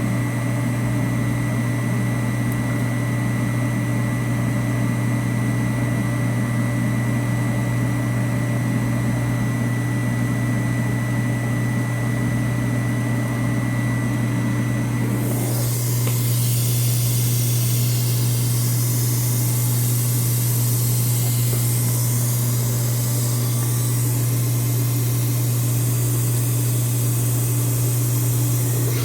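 Steady low machine hum from a dental CNC milling machine; about halfway through, a loud hiss like blowing compressed air starts and keeps going.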